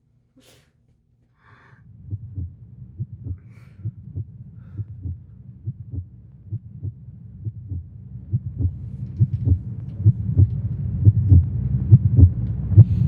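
Heartbeat sound effect: low, regular beats starting about two seconds in, gradually speeding up and getting louder.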